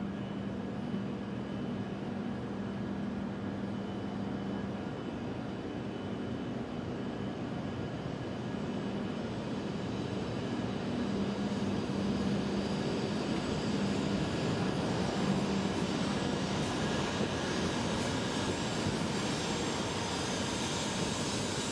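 E7 series Shinkansen train pulling out and accelerating past, starting as a low steady hum. The running noise of its motors and wheels grows steadily louder through the second half, with a few brief high ticks near the end.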